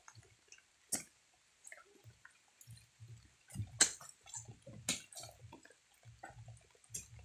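Oil palm fruit bunches being spiked and shifted on a truck's load with long metal poles: scattered sharp knocks and thuds, the loudest about four seconds in, with soft low thumps between.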